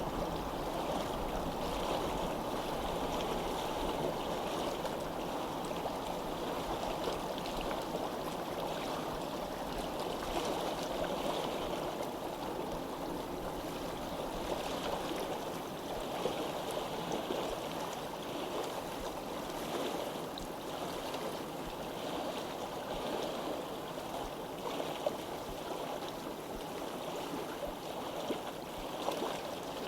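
Steady sound of flowing water, with a few faint ticks.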